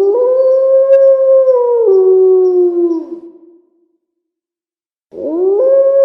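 Werewolf howl sound effect: a long wolf-like howl that swoops up, holds, steps down in pitch about two seconds in and fades away. After about a second and a half of silence, a second, matching howl begins near the end.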